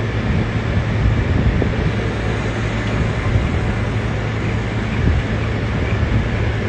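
Steady street traffic noise with a constant low engine hum.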